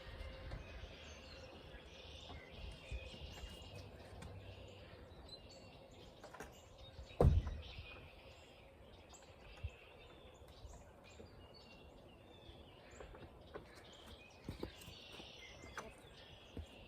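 Faint outdoor ambience with birds chirping now and then and a few small knocks; one louder thump about seven seconds in.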